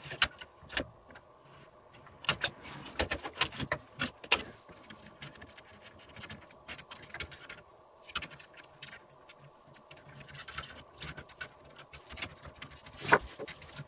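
Scattered light clicks and knocks as a 360 mm water-cooling radiator is handled and test-fitted against the top of a metal PC case, with a sharper knock near the end.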